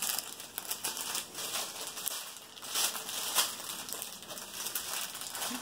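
Small plastic bags of diamond-painting drills crinkling and rustling as they are handled and laid down, in irregular crackles that are loudest around the middle.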